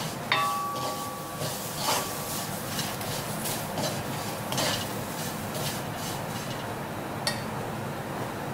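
Spatula stirring and scraping masala-coated chicken around a stainless steel wok, in several short strokes. A knock against the pan just after the start leaves it ringing for about a second. A steady hiss runs underneath.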